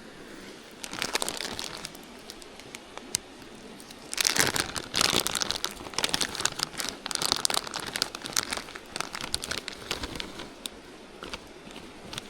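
Crinkling and crackly rustling, as of a wrapper or thin packaging being handled: a brief spell about a second in, then a longer, louder spell from about four seconds in that tapers into scattered ticks.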